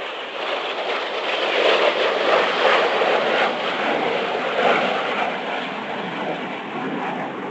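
Four BAE Hawk T1 jets flying past in formation, their Adour turbofans making a loud jet roar. The roar swells over the first two seconds, peaks mid-way and slowly fades as they move away.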